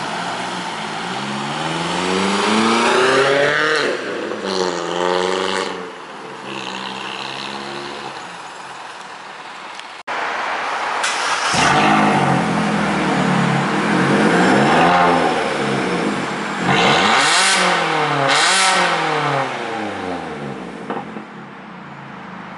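Vauxhall Corsa 1.4 non-turbo four-cylinder petrol engine with a straight-piped exhaust (centre box removed), really loud. It revs up and drops back as the car pulls away. Then, after a sudden cut, it gives a series of rev blips at a standstill in a multi-storey car park.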